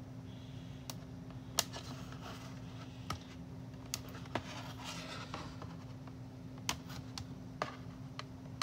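Scattered sharp snips and clicks with light rustling of plastic packaging: scissors cutting a doll's accessories free from their plastic tray.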